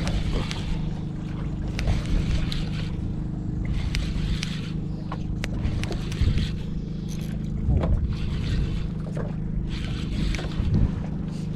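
Steady low drone of a motor aboard a fishing boat, with washes of water or wind noise coming every second or two and a few sharp clicks.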